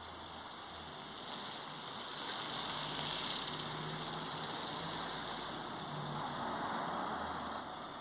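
GoGo Bird remote-control flapping-wing toy bird whirring as it flies close by. The whir grows louder after about a second and a half and fades near the end.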